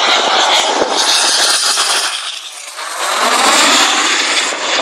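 BAE Hawk T1 jet trainers, Rolls-Royce Adour turbofans, passing low overhead on landing approach with gear down. The loud jet noise dips briefly about two and a half seconds in, then swells again as the next jet goes over.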